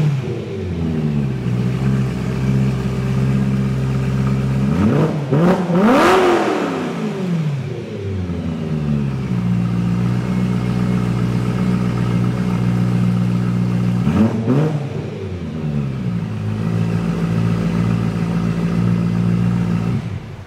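BMW E92 M3's V8 running with its mufflers removed, idling steadily with the raw, unmuffled exhaust note. The throttle is blipped twice, a big rev about five seconds in and a shorter one about fourteen seconds in, the pitch climbing and falling back to idle each time.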